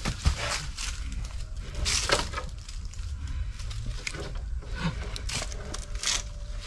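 Footsteps crunching and rustling in dry leaf litter, irregular scattered crackles over a steady low rumble.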